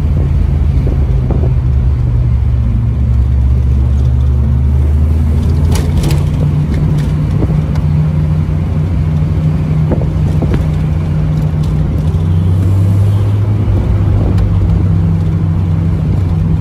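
Supercharged VW G60 four-cylinder engine of a first-generation Golf Cabrio, heard from inside the cabin while driving, with road noise: a steady low drone that shifts in pitch a few times as the speed changes.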